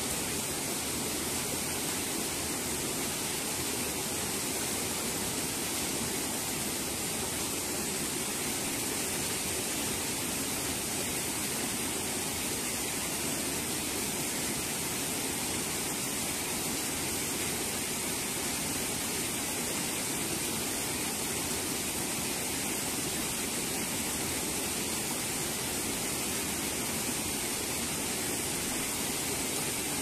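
Mountain river rushing over rocks in a shallow rapid: a steady, unbroken rush of water.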